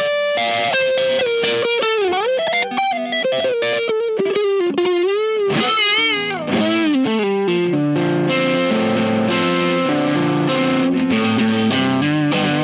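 Telecaster electric guitar played through a Wyong Rd Electronics Keris overdrive pedal into a clean amp. It plays a country-rock single-note lead with string bends and vibrato, then held chords from about eight seconds in, distorted but still sounding like a Tele.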